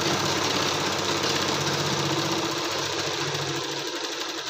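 Sewing machine running steadily as it stitches a seam through folded cotton fabric, its low motor hum dropping away near the end as it slows.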